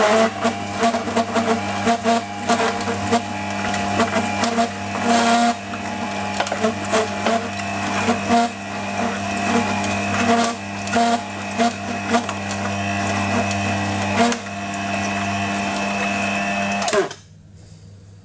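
Electric auger (screw) juicer running with a steady motor hum and frequent crackling clicks as it crushes carrot and apple. It switches off about a second before the end.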